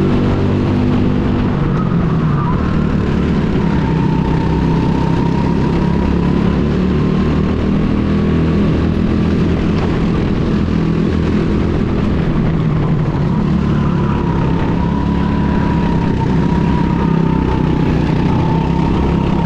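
Go-kart engine running steadily, with a thin whine that wavers slightly in pitch.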